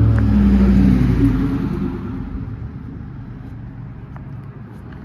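A motor vehicle's engine rumbling, loud at first and fading away over about two seconds, leaving a quieter low rumble.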